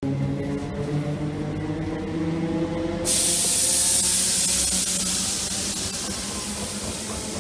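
Z6400 electric multiple unit running past close by, its traction motors giving several whining tones that slowly fall in pitch. About three seconds in, a loud steady hiss starts suddenly and goes on over the motor whine.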